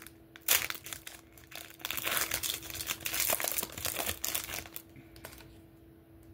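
Shiny plastic-foil wrapper of a Panini Prizm basketball card pack crinkling and tearing as it is ripped open by hand. The dense crackling dies away about five and a half seconds in.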